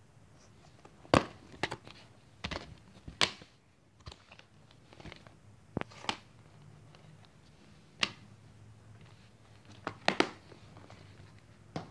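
Plastic multi-disc DVD case being handled, opened and closed: a string of sharp plastic clicks and snaps, the loudest about a second in and again around eight and ten seconds.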